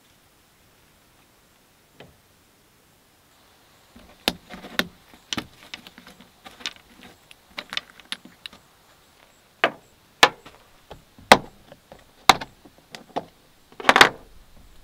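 Small metal-capped spice tubes and a plastic food container handled on a wooden tabletop: a run of sharp clicks and knocks starting about four seconds in, one or two a second, the loudest a short clatter near the end.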